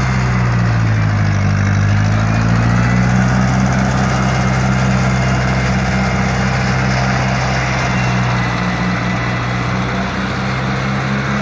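Ferguson tractor engine running steadily as the tractor is driven. Its note sags briefly about a second in, then recovers and holds even.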